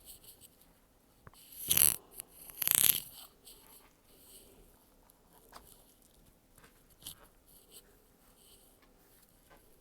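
Handling noises from work inside an opened laptop during removal of its power jack: two short loud scrapes about a second apart, then light clicks and taps of small parts.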